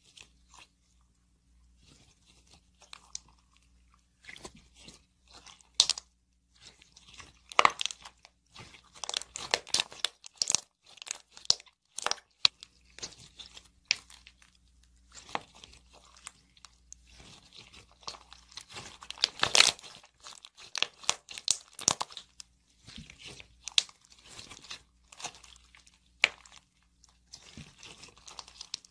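Clear slime packed with colored beads, squeezed and pressed by hand, giving irregular crunchy crackles and pops. It starts sparse and grows busy after a few seconds.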